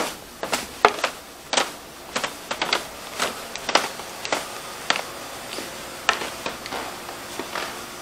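Footsteps going down a carpeted wooden staircase: irregular sharp knocks, about two a second, some in quick pairs.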